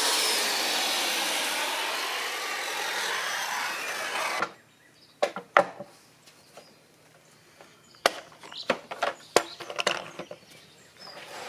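Corded circular saw cutting through a clamped stack of plastic lattice sheets, stopping abruptly about four and a half seconds in. Then scattered sharp clicks and knocks as the plastic bar clamps and the cut lattice are handled.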